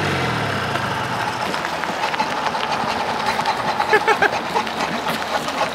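1990s Hirth 2703 two-stroke ultralight engine turning a wooden pusher propeller on a go-kart. Its pitch drops in the first half second, then it keeps running with a rough, rattly buzz and an uneven level, which the riders put down to one carburettor backfiring and carburettors still needing adjustment.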